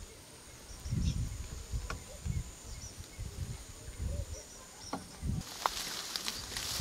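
Outdoor lakeside ambience: faint bird chirps over irregular low rumbles. A steady hiss comes in about five and a half seconds in.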